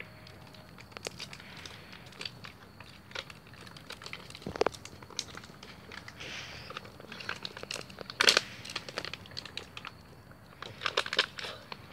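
Small plastic water bottles crinkling and crackling as they are squeezed while being drunk down fast: a run of sharp, irregular clicks, loudest about eight seconds in.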